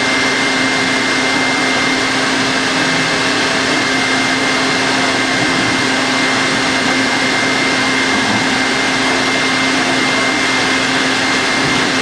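Electric stand mixer running steadily at high speed, beating egg yolks and sugar: an even motor whir with a steady low hum and a higher whine over it.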